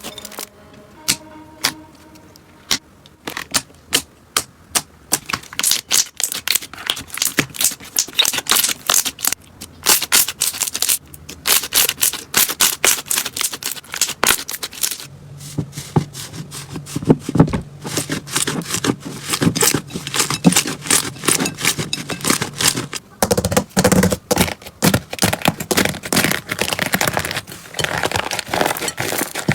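Slime being squeezed and worked by hand, giving a dense run of sharp popping clicks.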